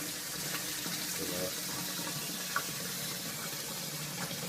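A steady rushing hiss with a short, faint pitched sound about a second in and a small click midway.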